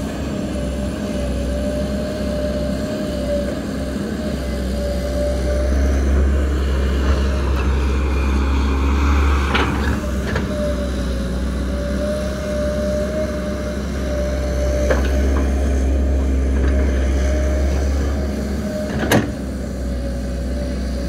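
XCMG XE135B excavator working a soil pile: the diesel engine runs with a low rumble that swells under load as it digs, over a steady whine. A few sharp metallic knocks come through, two about ten seconds in and the loudest near the end.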